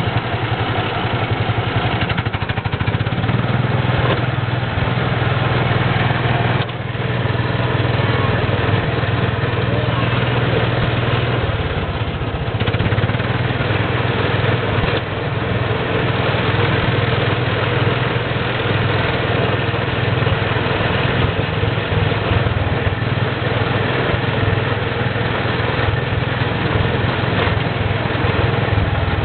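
Small gasoline engine of an amusement-park antique ride car running steadily, heard from inside the car, with a constant low drone.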